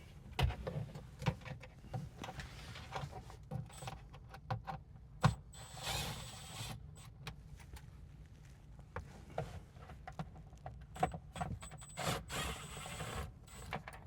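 Hand work on a utility vehicle's plastic dash with a T30 Torx driver, loosening screws: scattered clicks and knocks of the tool and parts, with two longer scraping, rattling stretches about six seconds in and again near the end.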